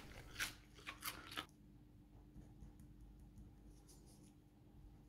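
Faint scratching of a pen writing on paper, after a few short rustles or taps in the first second and a half.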